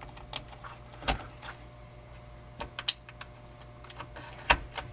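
Small plastic clicks and taps as CPU fan wire connectors are pushed onto motherboard headers and the wires are handled. There are a few sharp clicks, the strongest about a second in and near the end, with a quick cluster around the middle, over a faint steady hum.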